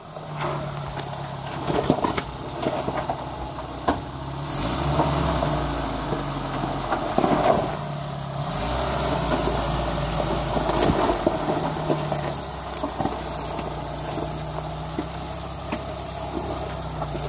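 A lifted 4x4's engine running at low revs as it crawls down a steep rocky drop, with scattered knocks and crunches from rocks under the tyres. The engine grows louder about four seconds in and again from about eight seconds.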